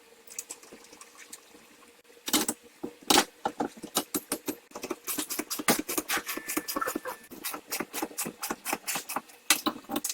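Spring compressors being tightened on a front shock-absorber strut, most likely with a ratchet: rapid metallic clicking at several clicks a second, with a couple of louder metal knocks about two and three seconds in.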